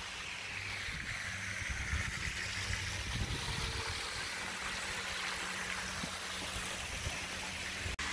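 A pond fountain's spray splashing steadily, an even rush of falling water.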